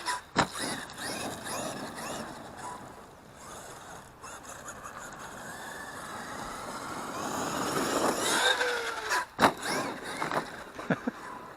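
Electric motor of a Traxxas X-Maxx RC monster truck whining up and down in pitch as it is driven hard over dirt, with sharp knocks about half a second in and again near 9.5 s.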